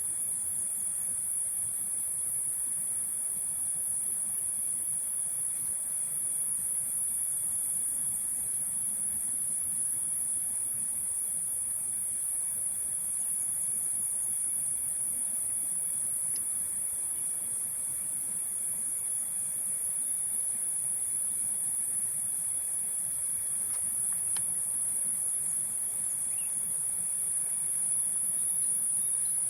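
Steady, high-pitched chorus of tropical forest insects, with a second, lower steady insect tone beneath it.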